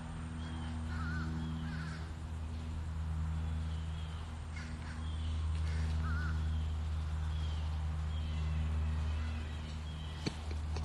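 Peacocks calling: short calls repeated at intervals over a louder steady low hum, with a single click about ten seconds in.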